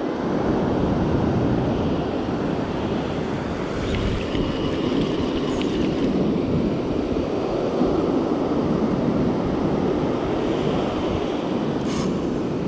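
Steady wind buffeting the microphone over the wash of breaking surf on an open beach.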